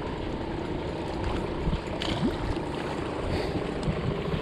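Steady rush of wind and small waves lapping against a rocky lakeshore, with a couple of faint clicks.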